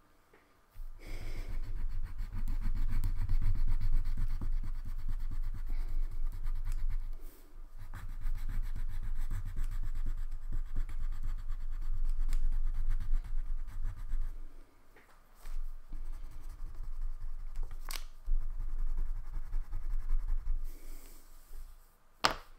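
Wax crayon scribbling rapidly back and forth on paper as an area is coloured in. It comes as a dense, scratchy rubbing in three long stretches with short pauses between them, and a few sharp clicks near the end.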